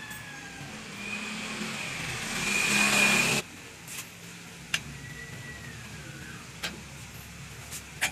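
A motor vehicle engine grows louder over about two seconds, then cuts off abruptly about three and a half seconds in. A few light metal clicks follow as the coil-over rear shock and its mounting bolt are handled.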